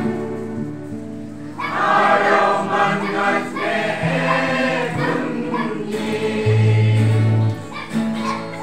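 A group of voices singing a Christmas carol, with steady held low notes underneath.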